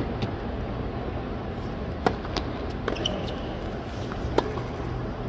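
Tennis ball struck back and forth in a rally: several sharp, short pops a second or two apart, over the steady hush of a large stadium crowd.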